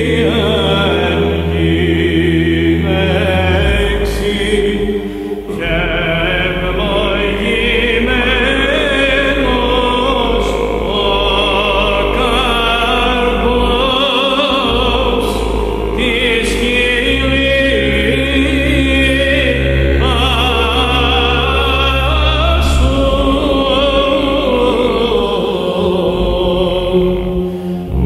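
Byzantine chant: a solo cantor's ornamented, melismatic melody over an overdubbed basso profondo drone (ison) held very deep, mostly on a low G. The drone sounds for the first few seconds, drops out, and returns for several seconds past the middle.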